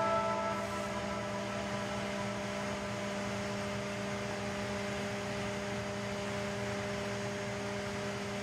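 Steady electrical hum with fan-like noise of workshop room tone, unchanging throughout; the last chord of background music dies away in the first second.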